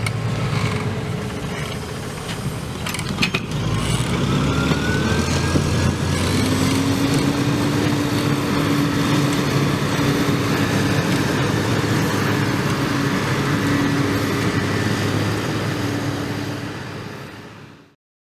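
Same Diamond 265 tractor's Deutz 1013 six-cylinder diesel running steadily, with a few knocks about three seconds in and a whine rising in pitch just after. The sound fades out near the end.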